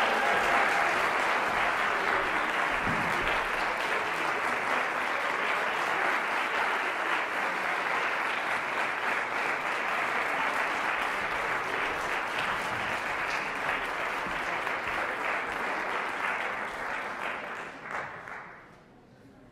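Audience applauding steadily in a concert hall, dying away about eighteen seconds in.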